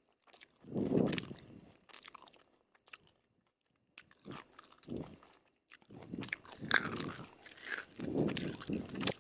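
Eating stir-fried yellow noodles: chewing and slurping in short, irregular bursts with wet mouth clicks, separated by brief quiet pauses, busiest in the last few seconds.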